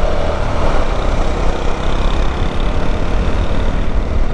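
Motorcycle on the move: a steady run of engine and road noise.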